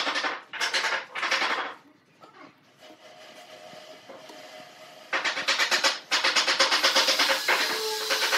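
A pen scratching across a pine board, drawing marking lines along a steel ruler: three short strokes in the first two seconds, then longer strokes from about five seconds in.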